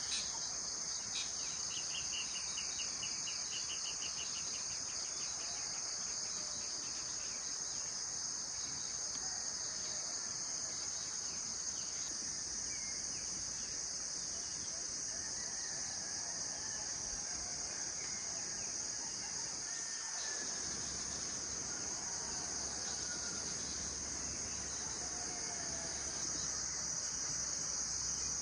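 Steady high-pitched chorus of crickets and other insects, with a short pulsing trill about a second in and faint scattered bird calls.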